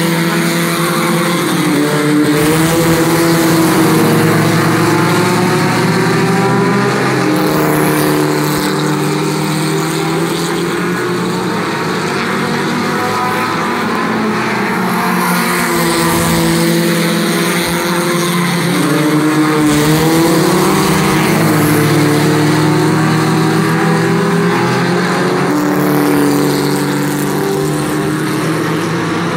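A pack of mini stock race cars running flat out in a feature race, a steady mass of engine noise. It swells and falls in pitch several times as the field comes past and goes away.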